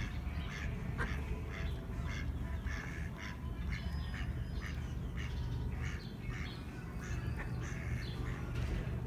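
Mallard ducks quacking in short repeated calls, two to three a second, over a steady low rumble.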